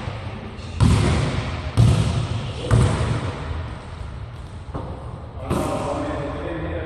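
Basketball bouncing three times on a hardwood gym floor, about a second apart, each bounce echoing in a large hall.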